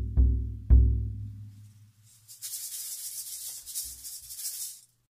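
Background music ending: a few low drum beats that die away about a second in, then a high hiss that cuts off suddenly near the end.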